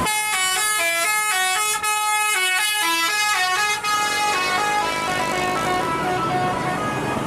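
Basuri telolet multi-tone musical horn on an Isuzu Elf minibus, playing a melody of short held notes that step up and down in pitch. It starts suddenly and grows fainter over the last few seconds.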